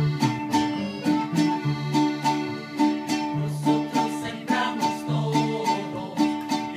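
Live folk band music: acoustic guitar strummed in a steady rhythm over moving bass notes, with held accordion notes.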